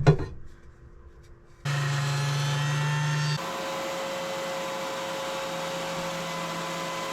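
Electric woodworking machine, such as a planer, running with a steady motor whine as it surfaces a walnut board. It starts abruptly a couple of seconds in, gets somewhat quieter after about a second and a half, and its pitch starts to drop near the end.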